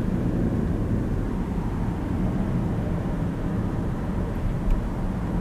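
Steady road and engine noise of a moving car, heard from inside the cabin as a low, even rumble.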